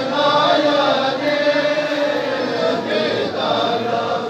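A noha, a Shia mourning lament in Balti, chanted by many voices together, with long held notes.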